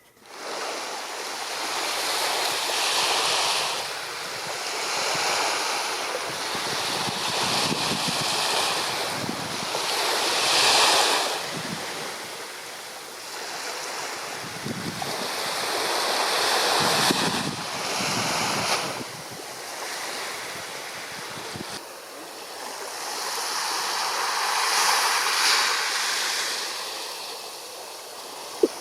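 Water sloshing and splashing around a kayak, with wind buffeting the microphone; the rushing swells and fades every few seconds.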